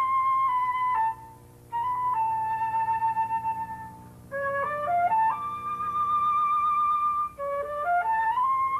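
Solo flute playing a slow melody: short rising runs of notes, each ending in a long held note with vibrato. The phrases are separated by brief pauses, about a second in and again about four seconds in.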